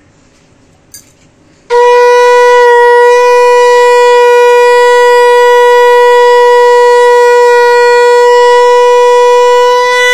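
Conch shell (shankha) blown in one long, steady note that starts suddenly about two seconds in and is held loud and unwavering.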